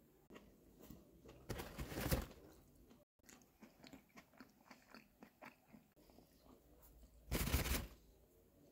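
Close-up eating sounds: two loud crunchy bites, about two seconds in and again near the end, with short chewing clicks in between.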